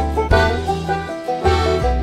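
Background music with plucked string instruments, banjo-like, over a steady bass line.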